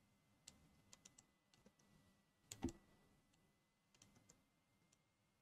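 Near silence with a few faint, scattered clicks of a computer keyboard and mouse, one a little louder about two and a half seconds in.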